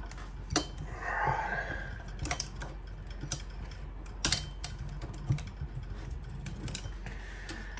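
Scattered light metallic clicks and taps from a hex driver working a bolt into an RC helicopter's aluminium rotor head, a few seconds apart, over a faint steady low hum.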